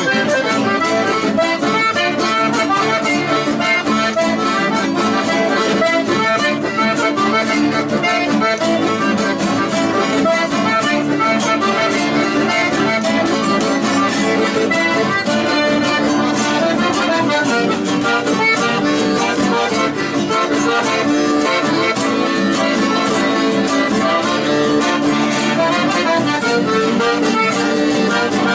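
Chamamé music led by an accordion, playing steadily with a regular beat.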